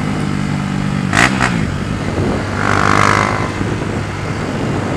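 Honda Fan 150 single-cylinder four-stroke, bored out with a 4mm kit, running through a Gemoto Racing aftermarket exhaust while being ridden, with a steady engine note.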